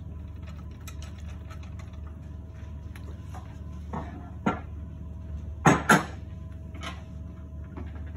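A few sharp knocks and clatters of hard objects being handled, the loudest two in quick succession past the middle, over a steady low hum.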